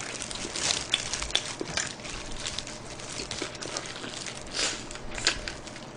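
A person biting and chewing sauce-glazed fried chicken close to the microphone: a run of irregular small clicks.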